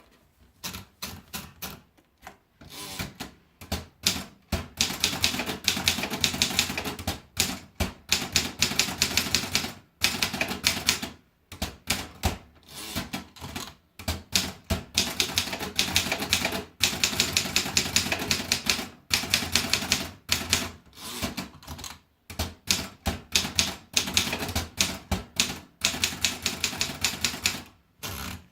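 Continental 340 typewriter being typed on: quick runs of sharp key strikes lasting a few seconds each, with short pauses between the runs.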